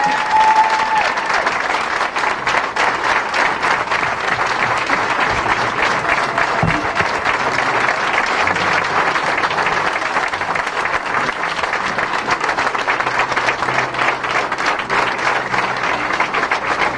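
Audience applauding: many people clapping steadily and without a break.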